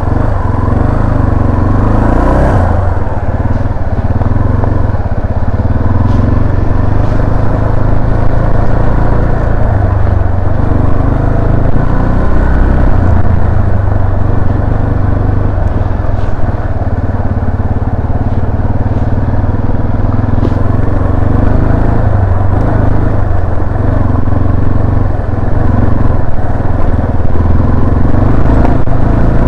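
Yamaha Serow 250's carbureted single-cylinder engine running as the motorcycle rides a forest road. It pulls away with a rise in pitch about two seconds in, then runs at a steady pace and gets louder near the end.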